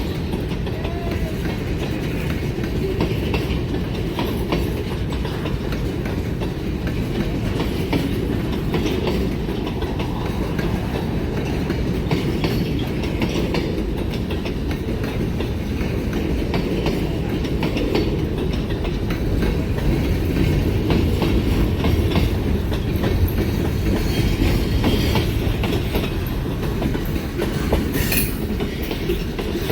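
Freight train running steadily: a low, even rumble with the clicking of wheels over the rails.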